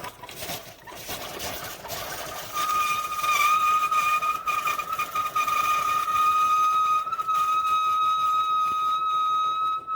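Amazon Basics single-serve K-Cup coffee maker brewing, giving a steady high-pitched whistling whine over a hiss. It gets louder about two and a half seconds in and sounds like a subway train.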